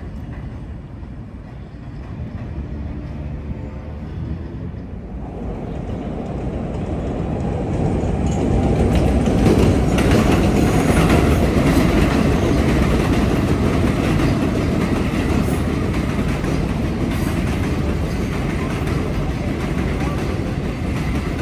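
An 11-car Flushing Line (7) subway train running past on the elevated tracks. Its wheel rumble and clatter build from about five seconds in and stay loud.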